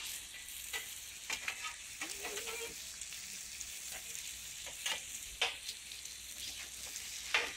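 Bacon, sausages and pancake batter sizzling on a large round griddle, a steady high hiss, with several sharp clicks and scrapes of a metal spatula turning the sausages, the loudest two near the end.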